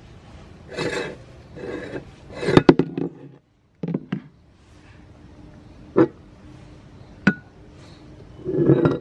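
Metal parts of a manual meat grinder being taken apart: scraping and rubbing as the threaded collar ring is worked off, then two sharp metal clicks and a last scrape as the cutting plate and blade are handled and pulled out.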